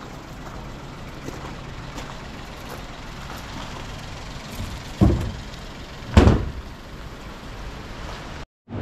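Outdoor background with a steady low vehicle hum, broken by two heavy thumps about five and six seconds in.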